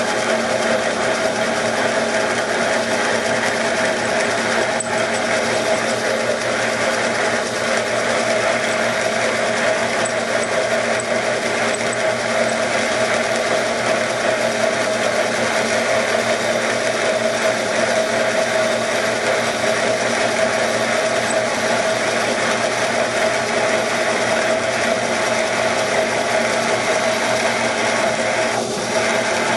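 Drill running steadily under light, even feed as it bores through a broken-off stud in a big block Chevy cylinder head.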